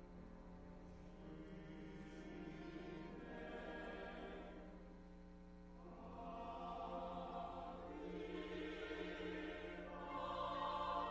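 Church choir singing a sacred anthem in sustained phrases, accompanied by a small string ensemble of violins and cellos. It swells and eases, dips briefly about five seconds in, then builds and grows loudest near the end.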